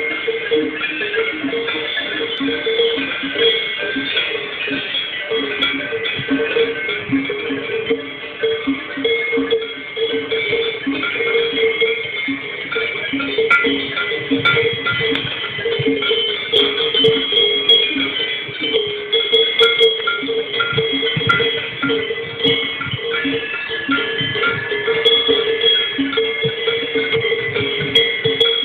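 Several cowbells of different pitches clanking and ringing over one another continuously and irregularly, as worn by grazing cattle.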